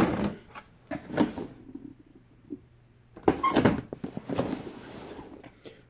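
Small toys being handled and set down: a few sharp clacks and knocks, then a second or so of shuffling and sliding noise.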